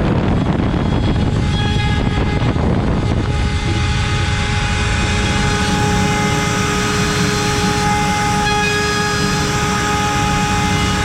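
CNC router spindle spinning an 8 mm cutter at 24,000 rpm while milling wood, a steady high-speed whine over loud cutting noise. The whine's tones stand out more clearly from about a third of the way in.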